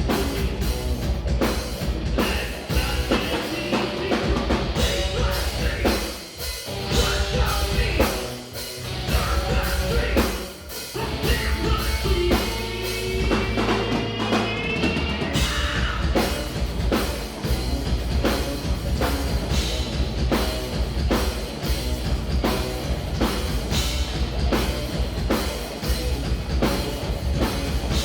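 Live heavy progressive rock band playing: distorted guitars and bass over a fast, driving drum kit. The beat drops out briefly about six, eight and ten seconds in, and a low note is held a little later before the full band comes back in.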